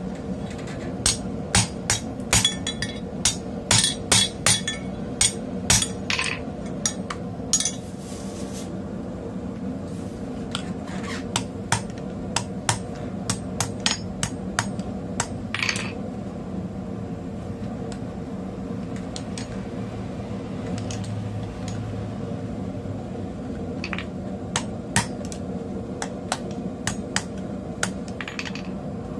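Hand hammer striking red-hot mild-steel tong jaws on a small steel anvil block. A quick run of sharp, ringing blows for the first several seconds, then blows spaced farther apart and more irregular, over a steady low hum.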